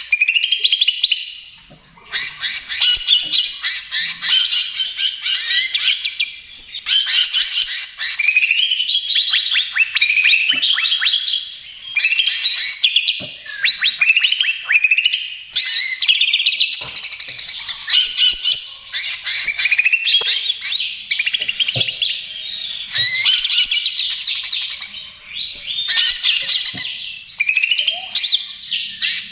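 Cucak ijo (green leafbird) singing in long, fast, varied phrases of chirps, trills and rising whistled notes, with rapid rattling note-runs and brief pauses between phrases.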